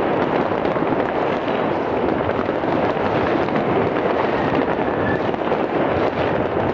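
Many firecrackers and fireworks going off at once: a dense, unbroken crackle of overlapping bangs that blur into a steady din.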